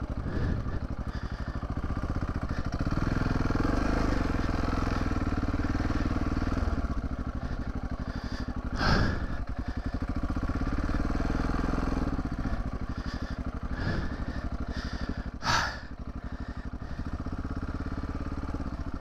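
Adventure motorcycle's engine running at low speed over a muddy trail, heard from the bike itself, its revs rising for a few seconds about three seconds in and then settling. Two short, louder sounds break in, about nine and fifteen seconds in.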